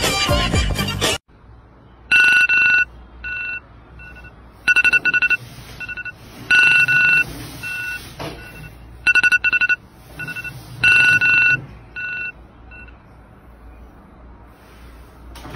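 A second of music cuts off, then a mobile phone alarm rings: a repeating electronic beeping tune of long and short two-note beeps. It stops near the end as the alarm is snoozed.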